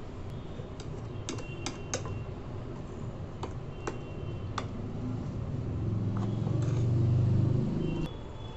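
Spoon stirring a wet spice paste in a small ceramic bowl, tapping and clinking against the bowl's side with sharp clicks, some followed by a short ringing note. A low hum swells from about five seconds in and stops abruptly near eight seconds.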